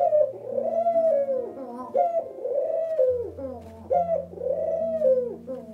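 Feral pigeons cooing: a run of repeated coos, each rising and then falling in pitch, about one a second.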